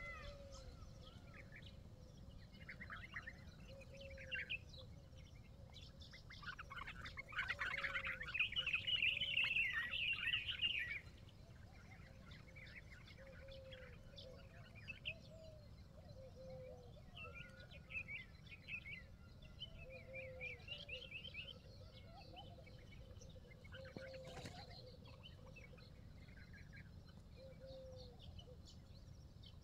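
Wild birds chirping and calling, with a burst of louder, busier chirping about a quarter of the way in and a short lower call repeating every few seconds.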